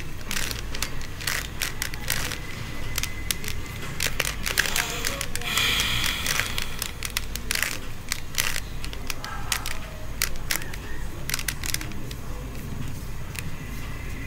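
Plastic 3x3 Rubik's cube being turned by hand: irregular clicks and rattles as its layers rotate, with a steady low hum underneath.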